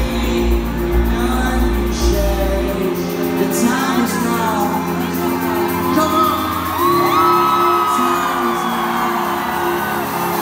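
Live pop band music amplified in a large hall, with a sung vocal line over sustained chords. A heavy bass beat drops out about three seconds in. Whoops from the audience are heard along with the singing.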